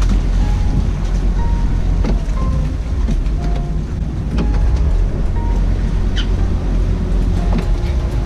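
Wind buffeting the microphone as a steady low rumble, with faint background music of short, separate notes over it.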